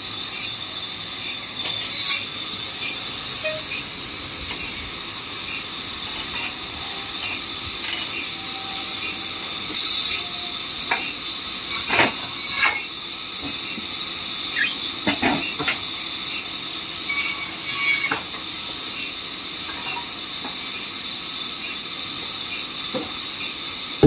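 Sawmill machinery running with a steady high hiss and a light tick a little faster than once a second. A few sharper knocks come about halfway through.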